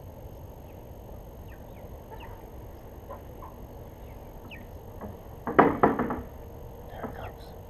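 Birds chirping faintly here and there in short falling notes, and about five and a half seconds in a loud burst of rattling knocks, with a smaller knock shortly before the end.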